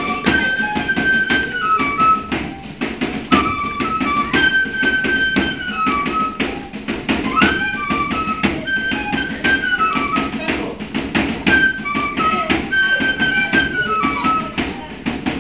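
Traditional Andean dance music: a flute melody of held, stepping notes over a steady drum beat.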